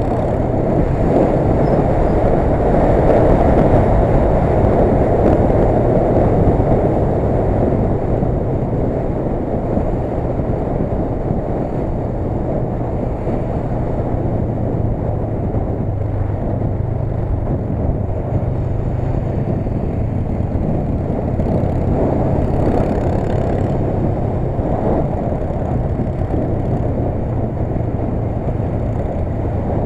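Motorcycle riding in traffic: a steady low engine hum under dense wind and road noise, a little louder a few seconds in.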